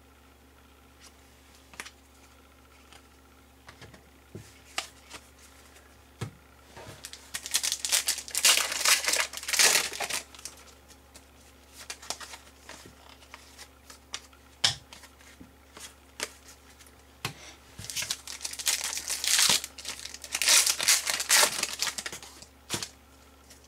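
Crinkling and tearing of a foil trading-card pack wrapper in two spells of a few seconds each, with light clicks and slides of cards being handled in between.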